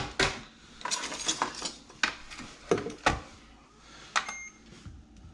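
Several sharp knocks and clatters of kitchen items handled at a stainless steel sink, with a plastic colander of green tomatoes. About four seconds in, a short electronic beep from a digital kitchen scale.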